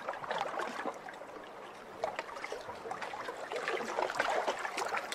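Steady faint bubbling and trickling of water with a light crackle, the sound of air bubbles from the windmill aerator's diffuser breaking the dam's surface.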